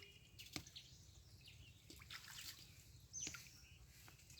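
Quiet rural outdoor ambience: faint bird chirps with a few light ticks or drips.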